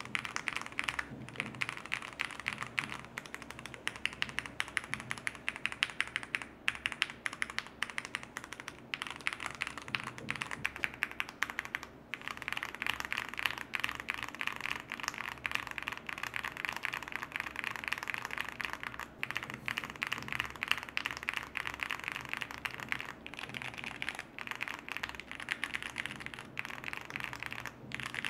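Steady, fast typing on a mechanical keyboard: a dense run of keystroke clacks, a typing-sound test of the keycaps fitted. The clatter gets brighter and a little louder about twelve seconds in.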